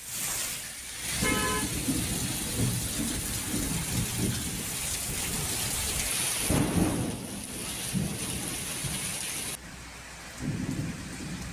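Heavy rain pouring down, a steady hiss with irregular low rumbling beneath it. A short horn-like beep sounds about a second in. The hiss drops away suddenly near the end, leaving the low rumble.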